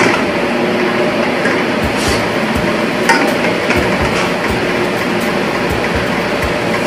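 Background music with a steady beat, over a spatula stirring in a stainless steel pot, with a couple of light clinks.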